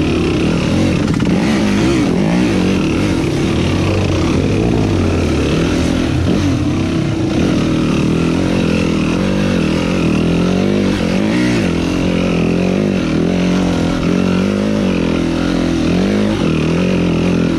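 Enduro dirt bike engine running under way, its revs rising and falling again and again as the throttle is worked along the trail.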